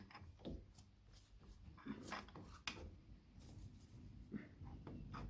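Faint, scattered clicks and knocks of metal motorcycle suspension-linkage parts being handled and wiggled into line for a bolt.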